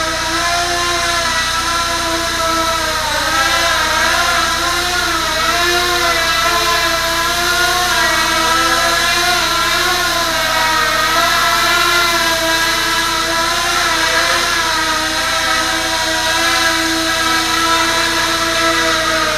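ROA Parkour 280 racing quadcopter's motors and propellers buzzing as it hovers and drifts low. The pitch keeps wavering up and down as the throttle is constantly corrected.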